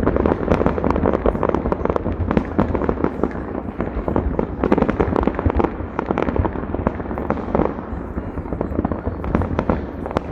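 Fireworks going off in a dense, continuous run of bangs and crackles, many overlapping each second, over a steady low rumble.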